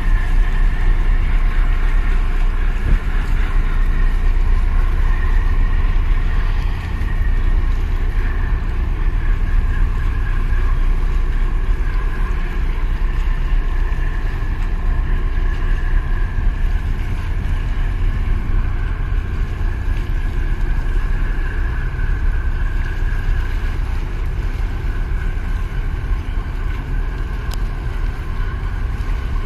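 Engines of a harbour tug and a large container ship running as they pass close by: a steady low rumble with a droning whine on top.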